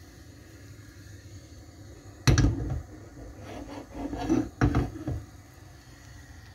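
A frying pan knocking and scraping on a gas stove's metal grate as it is set down: a sharp knock about a third of the way in, a run of smaller clatters, then a second sharp knock about two-thirds in.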